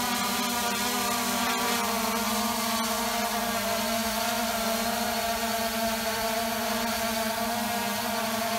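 Xiaomi Mi Drone quadcopter hovering low, carrying an SJ4000 action camera on top as extra payload: a steady propeller buzz whose pitch wavers slightly.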